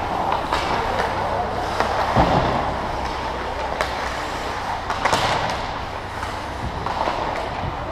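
Hockey game in play: a steady rush of play and crowd noise with a few sharp, irregular knocks of sticks striking the puck or ball, and faint distant voices.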